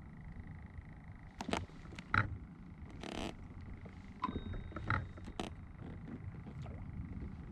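Scattered sharp knocks and clicks on a plastic fishing kayak as gear is handled on board, with a short rasp about three seconds in. Under it, a low wind-and-water rumble and a faint steady high tone.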